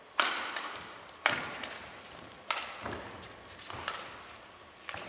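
Badminton rackets striking a shuttlecock in a rally: four sharp cracks about a second apart, each ringing on in the echo of a large hall, with fainter knocks in between.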